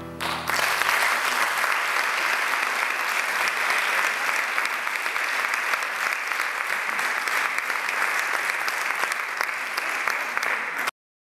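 Audience applause at the end of a Celtic folk tune: a steady, dense clapping that starts as the last chord dies away in the first half-second and cuts off abruptly near the end.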